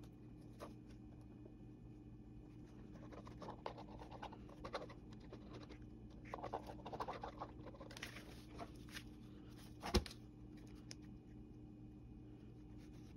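Faint scratching and rustling of a glue bottle's nozzle dragged across cardboard as thick tacky glue is squeezed out, and of a tissue-covered cardboard piece being handled. One short sharp tap about ten seconds in.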